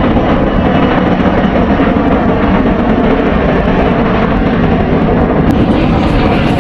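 Emirates airliner landing: a loud, steady rumbling roar of jet engines and airframe with no breaks.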